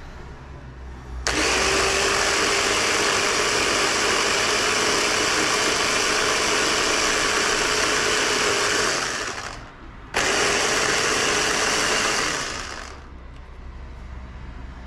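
Electric blender puréeing spinach leaves with milk: a steady motor whir that runs for about eight seconds, stops briefly, then runs again for about three seconds.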